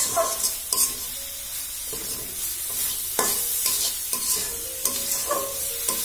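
Metal spatula stirring and scraping grated carrot halwa around a steel karahi in irregular strokes over a steady sizzle. The milk has cooked off and the carrot mixture is being stir-dried.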